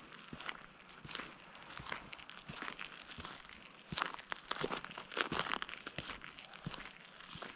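Footsteps crunching on a gravel road at a steady walking pace, about two steps a second.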